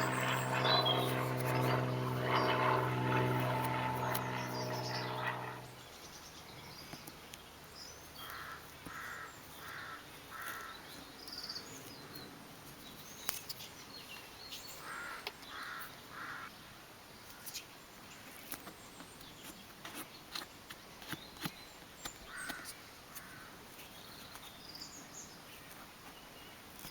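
A steady, pitched mechanical hum stops abruptly about six seconds in. After it, crows caw in quick sets of three, several times, over faint scattered clicks.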